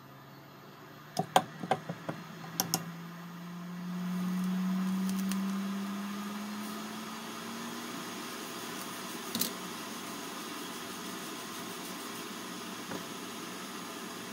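A few sharp clicks, then a small fan motor spinning up: a hum that rises slowly in pitch as a hiss of blowing air builds and then holds steady.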